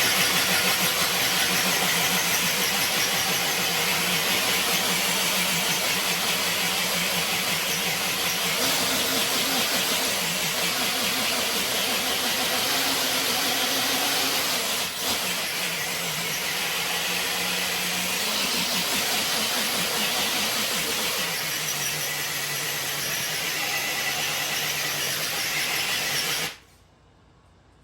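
Electric RC truck's motor and drivetrain whining steadily under heavy load while dragging a weighted sled, the pitch shifting a few times. It cuts off abruptly near the end.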